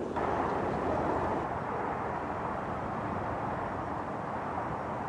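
Class 37 diesel locomotive with its English Electric V12 engine, running steadily as it approaches hauling a test train.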